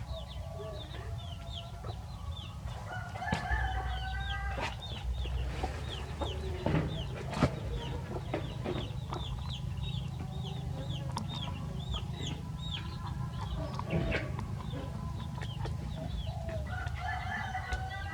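Chickens calling: a steady run of short, high, falling peeps, about three a second, with lower warbling clucks about three seconds in and again near the end. A few sharp knocks come through.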